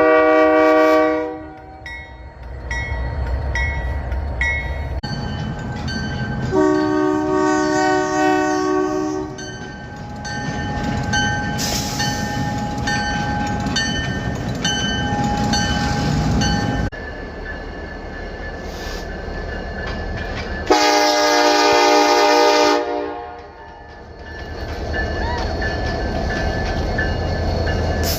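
Train air horns sounding three separate blasts, each a steady multi-note chord: a short loud one at the start, a longer one about a quarter of the way in, and another about three quarters through. Between the blasts comes the steady rumbling noise of a running train, and the sound changes abruptly several times where recordings are cut together.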